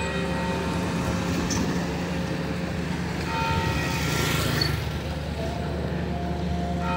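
Street traffic: a steady low engine hum, with a motorcycle passing close about four seconds in.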